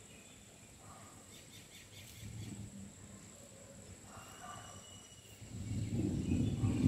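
Outdoor ambience: a steady high-pitched insect drone with a few faint bird chirps. About five and a half seconds in, a louder, irregular low rumble of wind buffeting the microphone comes in.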